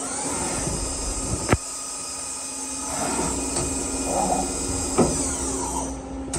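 DMC DL21LA CNC lathe running: a steady hum with a constant hiss, broken by two sharp clacks, about a second and a half in and again about five seconds in.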